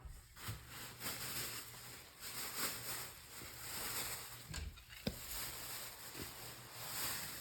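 Faint rustling and handling as toy prizes are put into a bag, with a single sharp click about five seconds in.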